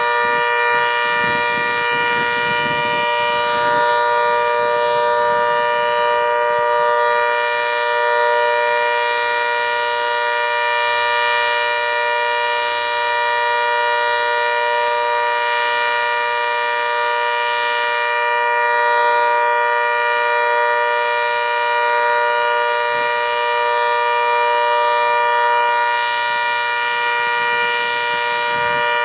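ACA Hurricane outdoor warning siren sounding a steady tone, several pitches held together as a chord at constant pitch, with slight swells in loudness.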